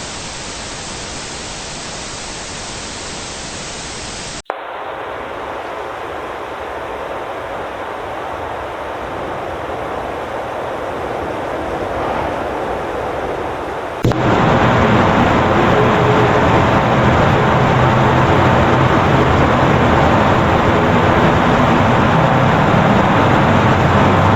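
Loud hissing static in three stages: an even hiss that cuts off sharply about four and a half seconds in, a duller hiss that slowly grows louder, then a sudden jump about fourteen seconds in to louder, deeper noise with a rumble that holds steady.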